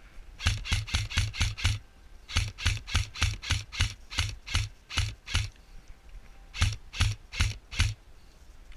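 Airsoft rifle firing rapid single shots, each a sharp crack with a low thump, in three strings: about six shots, a pause, about a dozen more, another pause, then about five, at roughly four to five shots a second.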